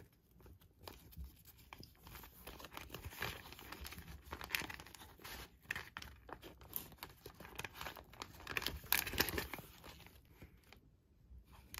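White paper food bag crinkling and rustling in the hands as it is opened and folded back, in irregular crackles that grow loudest near the end and then stop.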